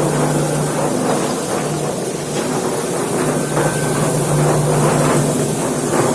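A motor running steadily with a constant low hum under a rushing mechanical noise, without a break.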